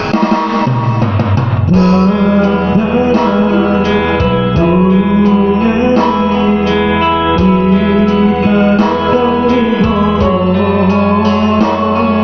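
A person singing over guitar-led backing music, testing their voice just after getting over flu and a cough.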